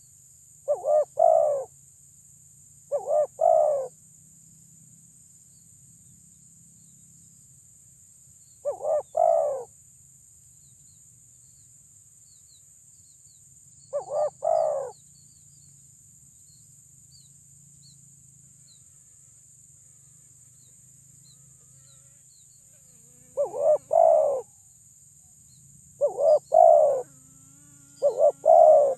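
Spotted dove cooing loudly, seven short phrases of two or three rolling coo notes each. They are spaced a few seconds apart, with a long pause midway and three phrases in quicker succession near the end. A steady high hiss runs underneath.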